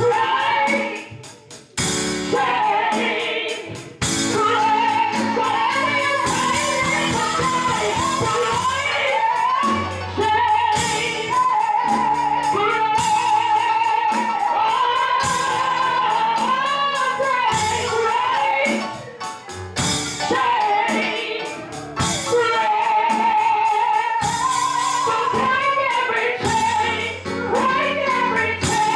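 A woman singing a worship song in a wavering voice, over sustained instrumental chords and bass notes. The music dips briefly a few times.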